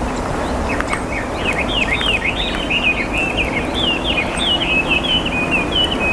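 A small bird singing a fast run of quick chirping notes, starting about a second in and carrying on almost to the end, over a steady low rumble.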